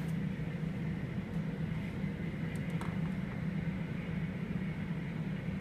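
Steady low hum of room tone, with faint background noise and no distinct event.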